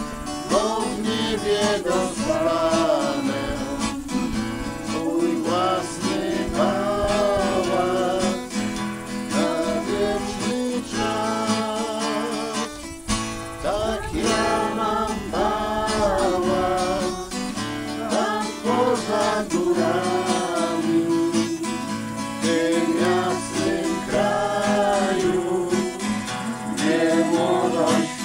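Acoustic guitar strummed to accompany singing of a song, the melody held in long sung notes.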